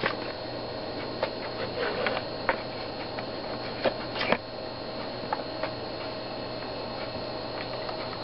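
Panasonic Toughbook CF-47 laptop hard drive working during boot: irregular seek clicks and ticks, mostly in the first six seconds, over a steady hum. The owner fears the drive is failing.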